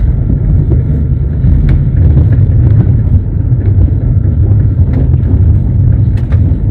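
Train wheels running on the rails, heard from inside a moving passenger train: a loud, steady low rumble with scattered sharp clicks and knocks from the wheels.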